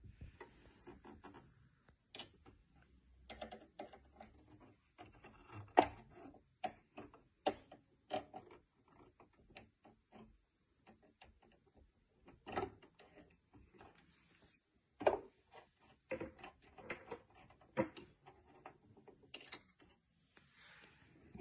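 Irregular small metallic clicks and taps from a screwdriver working the needle clamp screw of a Brother sewing machine, and from fingers handling the clamp and needle, with a few sharper knocks among them.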